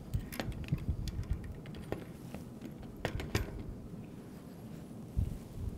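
Scattered light clicks and taps of small metal parts being handled: the axle nuts and dropout washers of a bicycle front wheel as the wheel is set into the fork.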